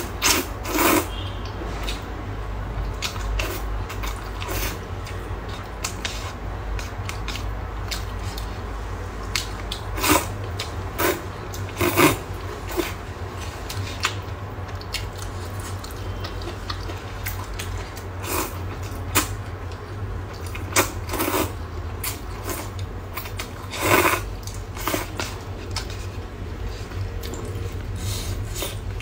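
A person eating instant rice noodles in broth: irregular short slurps and chewing sounds, with a few louder slurps, over a steady low hum.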